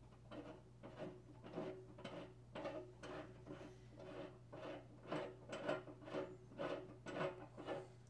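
Socket ratchet being swung in quick short strokes, a rapid clicking rasp about twice a second, as a loosened water-heater anode rod is unscrewed from its tank fitting.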